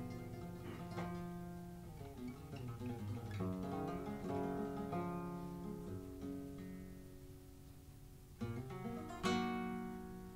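Solo flamenco guitar playing plucked melodic phrases, then two loud strummed chords about a second apart near the end.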